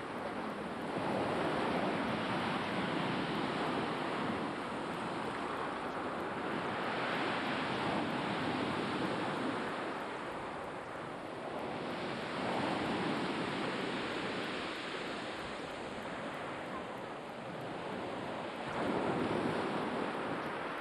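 Black Sea waves breaking and washing onto the shore, surging in and drawing back about every five to six seconds.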